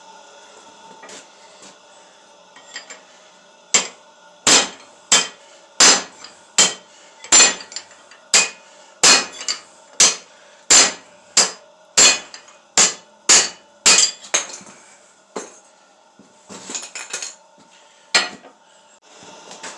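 Hand hammer striking steel on an anvil while forging: a quiet start, then a steady run of sharp, ringing blows, one to two a second, from about four seconds in until about fourteen, followed by a few lighter knocks and a single last blow near the end.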